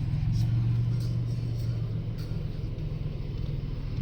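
Nissan VG30ET turbo V6 of a 1983 Z31 300ZX running steadily with a low, even hum, checked after its engine computer was repaired.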